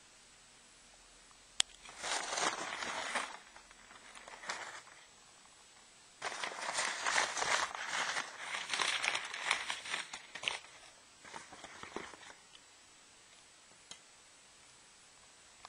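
Cloth rustling and crinkling as it is handled close to the microphone, in three bursts, the longest about four seconds, after a single sharp click.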